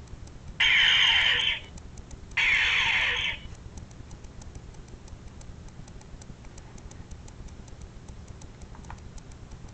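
Electronic phaser sound effect from a prop phaser's built-in soundboard, fired twice. Each shot is a harsh electronic zap about a second long, with falling tones inside it. Faint steady ticking runs underneath.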